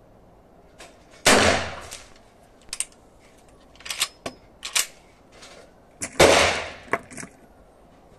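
Two loud gunshots about five seconds apart, each echoing briefly. In between come short metallic clicks and clacks of a Winchester 1873 lever-action rifle being cycled and loaded.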